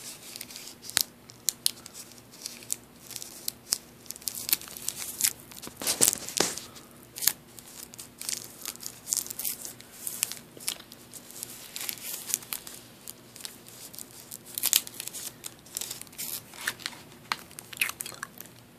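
Plastic cough drop bags crinkling and crackling as they are handled, in quick irregular crackles, with a louder rustle about six seconds in.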